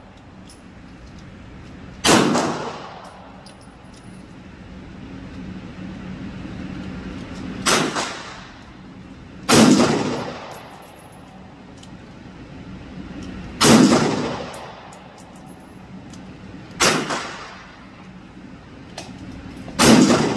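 AR-15 rifle fired six times at a slow, irregular pace, each shot ringing with reverberation of an indoor range, over a steady low hum.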